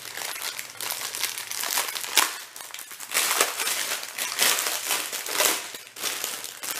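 Plastic packaging crinkling and crackling as a pack of diamond-painting drill bags is handled, in an uneven run of crackles.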